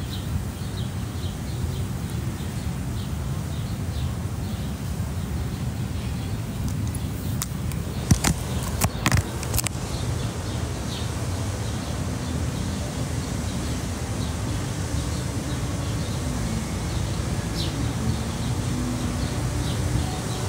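Outdoor ambience: a steady low rumble with birds chirping now and then, and a short run of sharp clicks about eight to ten seconds in.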